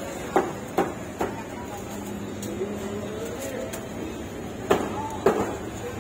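Sharp knocks of food being chopped, three quick strokes in the first second or so and another run near the end, over street-market background noise with faint voices.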